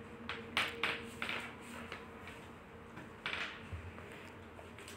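Spatula stirring a heavy mass of boiled noodles in a metal kadhai: a few faint scrapes and soft knocks over a faint steady hum.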